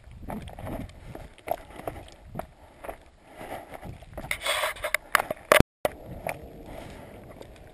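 Hiking footsteps crunching and scraping on a loose, rocky limestone trail, irregular and uneven. About four to five seconds in there is a louder stretch of scraping and sharp clicks. The sound then drops out completely for a moment before the steps resume.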